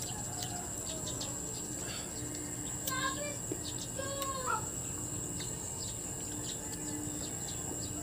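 Rural outdoor ambience: a steady high insect drone with a few short bird calls about three to four and a half seconds in, over faint ticks of a knife paring green mango.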